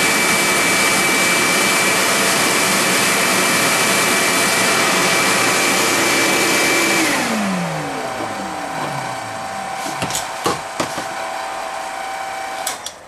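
Shop vacuum dust collector running loud with a steady whine, switched off about seven seconds in and spinning down. A lighter steady machine whine carries on after it, with a few knocks, and cuts off just before the end.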